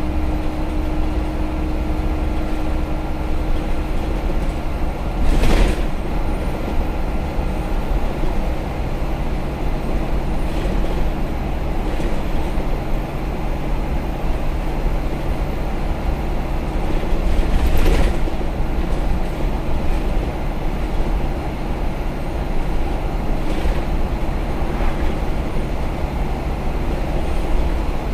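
Interior of an ADL Dart SLF single-deck bus under way: its engine and drivetrain run steadily under load with road noise. There are two short, louder noises, about five and eighteen seconds in.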